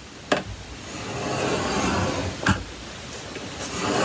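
A scoring stylus dragged down the groove of a scoring board, scraping as it presses a score line into designer series paper: two long strokes, with a couple of sharp clicks in between.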